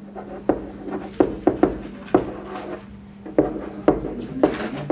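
Chalk writing on a chalkboard: a string of short, sharp taps and scrapes as each letter is stroked onto the board.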